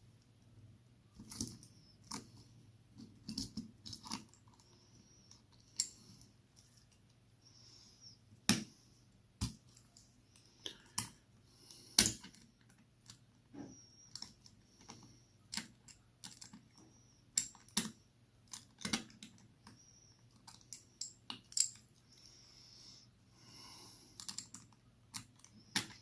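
Irregular small clicks and taps of metal tools and watch parts being handled while a watch movement and crown stem are fitted into the case, with a sharper click about eight and a half and twelve seconds in.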